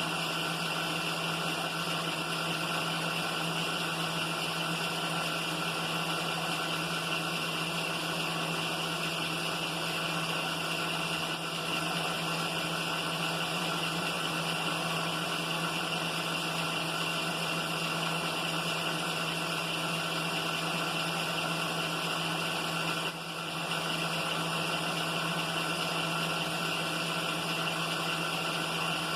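Milling machine spindle running steadily with a boring head and bar taking a light cut, a continuous mechanical hum with a few steady whining tones. It dips briefly about 11 and 23 seconds in.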